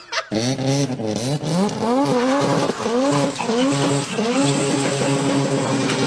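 Racing car engine sound, starting abruptly and accelerating hard: its pitch climbs and drops back about every half second as it shifts up through the gears, with a noisy hiss over it.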